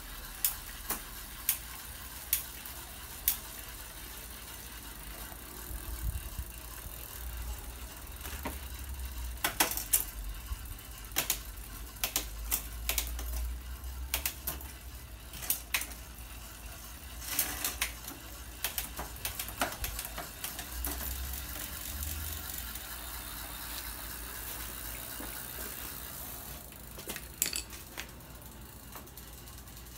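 Scattered clicks, taps and light metal rattles of hands and tools working on a mountain bike's rear wheel and drivetrain in a repair stand, over a low rumble. The clicks come irregularly and are thickest through the middle of the stretch.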